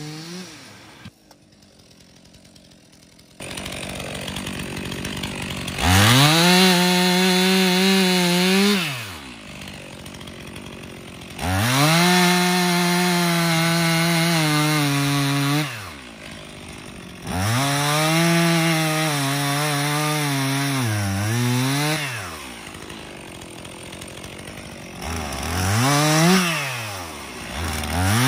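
Stihl MS 362 two-stroke chainsaw bucking a log. It revs up to full throttle and cuts three times for about three to four seconds each, dropping back to idle between cuts, and bogs down briefly near the end of the third cut. A shorter rev follows near the end.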